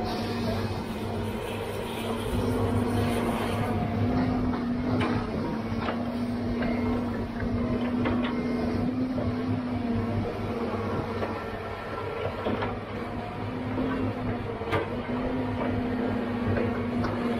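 Diesel engine and hydraulics of a tracked John Deere log loader working, a steady hum that shifts slightly in pitch as the boom moves, with scattered clunks and knocks as the Rotobec grapple handles logs and sets them on the log truck.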